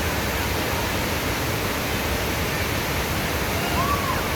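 Waterfall rushing: a steady hiss of falling water, with a faint short chirp near the end.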